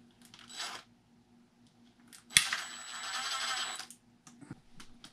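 A small RC-car ball bearing spun by hand: a sharp click, then a metallic whir lasting about a second and a half as it spins down. It runs smoothly, a bearing judged still good.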